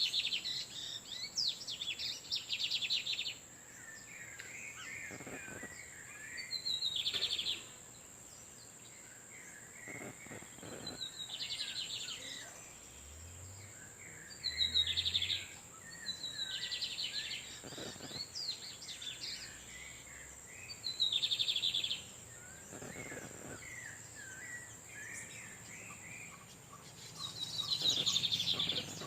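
Male lined seedeaters (Sporophila lineola) countersinging, each phrase a high buzzy trill lasting a second or two, repeated about every three to four seconds, with softer twittering lower down. A steady high tone runs underneath.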